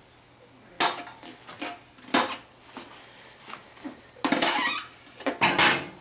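The steel mount bar of a No-Mar Cycle Hill manual tire changer clanks against the wheel and changer, then scrapes as the rear motorcycle tire's bead is levered over the rim. There are two sharp knocks in the first couple of seconds, then two longer, louder scrapes near the end.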